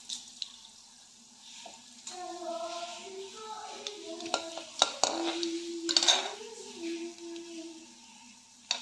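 Coriander seeds spluttering in hot cooking oil in a steel kadhai: a light sizzle with scattered sharp pops, thickest around the middle. A faint voice can be heard in the background.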